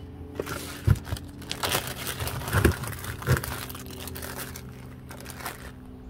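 Handling noise on a scooter transmission case and its bearing: rustling with four sharp knocks in the first half, the first the loudest, over a steady low hum.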